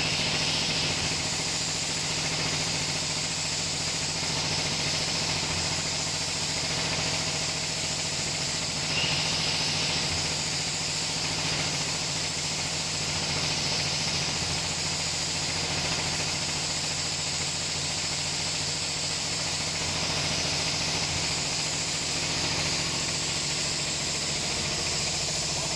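Vertical form-fill-seal packaging machine running steadily: a constant machine hum under a high, even hiss.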